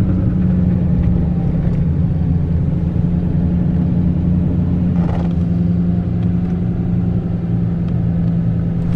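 GMC pickup truck's engine and road noise heard inside the cab while cruising, a steady low drone. A short rush of noise comes about five seconds in.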